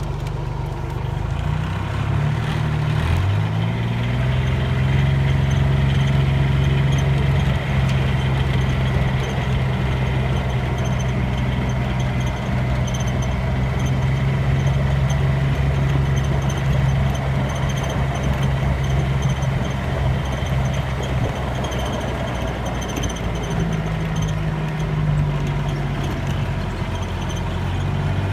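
A motor vehicle's engine running steadily; its pitch rises about three seconds in, holds, then dips briefly near the end.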